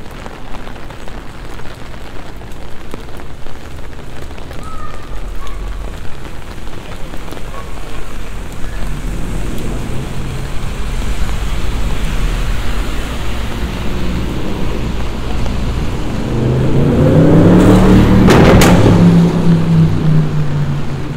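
Steady rain falling and splashing on wet pavement. About three-quarters of the way through, a loud low rumble swells up and peaks with a few sharp cracks before easing off.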